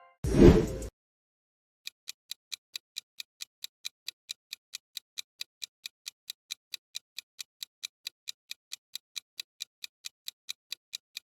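A short loud burst about half a second in, then a rapid clock-like ticking sound effect, about five ticks a second and perfectly even, typical of a quiz countdown timer.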